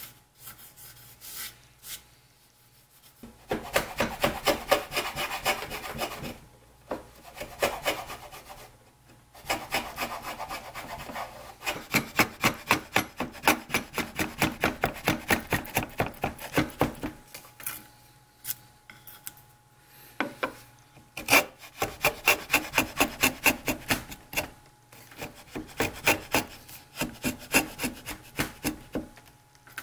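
Hand router plane paring the floor of a shallow recess in cherry, its blade scraping across the wood in quick repeated strokes, about three or four a second. The strokes come in runs of several seconds with short pauses between.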